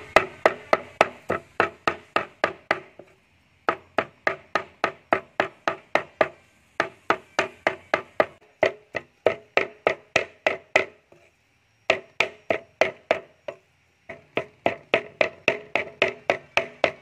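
Meat cleaver mincing pork belly on a round wooden chopping block: quick, even chops about four a second, each a sharp knock with a short ring, in runs broken by a few brief pauses.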